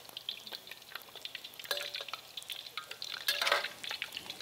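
Crab omelet frying in hot oil in a steel wok: a steady crackling sizzle, with the metal spatula and ladle clicking and scraping against the wok as the omelet is rolled. A louder scrape comes about three seconds in.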